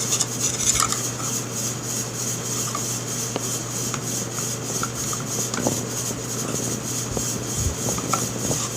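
Stevens 320 pump shotgun parts being worked into the receiver by hand: continuous rubbing and scraping with scattered light clicks, over a steady low hum.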